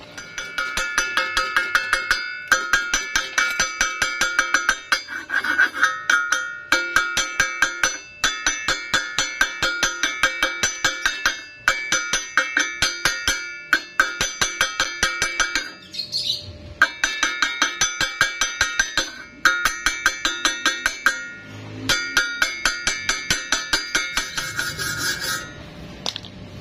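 Stick-welding arc on thin steel, crackling and buzzing in quick regular pulses, about four a second, as the rod is struck and broken in short stitches to keep from burning through. The pulsing stops briefly every few seconds, then starts again.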